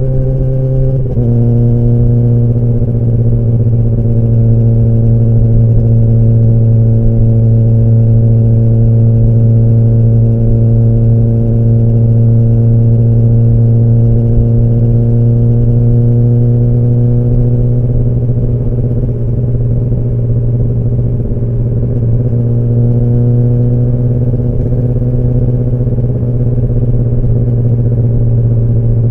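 Kawasaki ZX-10R's inline-four engine and exhaust running at a steady engine speed, its pitch dipping slightly about a second in and then holding almost level.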